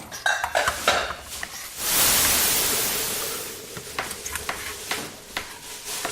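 Busy restaurant kitchen: a few clinks of metal utensils and pans, then, about two seconds in, a loud sizzling hiss from a hot frying pan that swells and slowly fades. Scattered taps of utensils on the pan follow.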